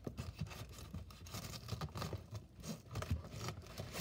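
Scissors cutting through clear tape on a cardboard box, a string of irregular snips, scrapes and crinkles.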